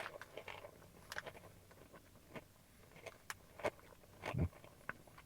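Faint, irregular crunches and clicks of someone chewing Doritos tortilla chips, with a slightly louder crunch about four and a half seconds in.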